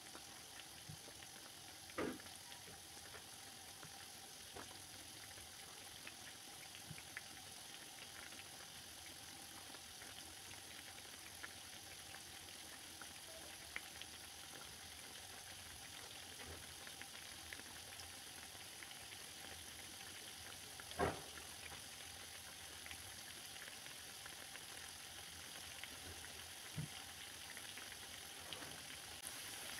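Half cakes (kangumu dough squares) deep-frying in hot oil: a steady faint sizzle with small crackles, and a few louder pops, the loudest about two-thirds of the way through.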